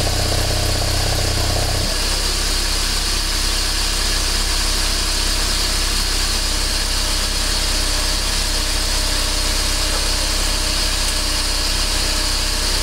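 BMW E46 318i idling after a cold start, its secondary air injection pump running with a loud bubbling, clattering noise that cuts off suddenly about two seconds in, leaving the engine idling on its own. The uploader counts the pump noise as abnormal.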